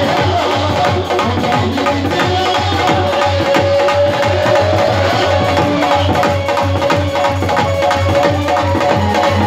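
Dhol drum beating a steady dance rhythm, with a held melodic tone from another instrument over the beat.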